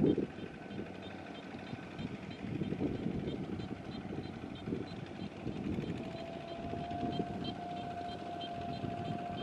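Single-cylinder diesel engine of a two-wheel mini tractor running under load as it pulls a loaded trailer through deep mud, its uneven rumble swelling and easing. A steady high whine comes in about six seconds in.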